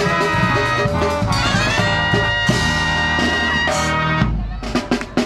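Brass marching band with sousaphones and drums playing a brassy up-tempo tune, with a long held high note in the middle. About four seconds in the band breaks off briefly, punctuated by a few sharp drum hits, before the music comes back.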